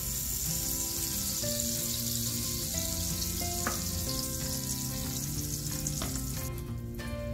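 Grease sizzling on the hot plates of a waffle maker as it is brushed on with a silicone brush: a steady hiss that cuts off shortly before the end. Background music plays underneath.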